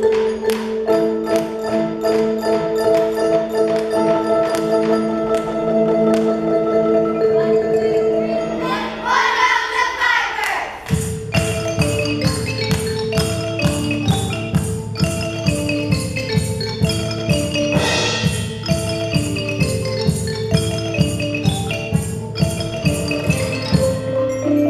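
A percussion ensemble of wooden xylophones and bass bar instruments with a drum kit playing music. For the first nine seconds it holds long sustained chords. A brief sweep about ten seconds in gives way to a steady beat of low bass notes, drum strokes and a xylophone melody on top.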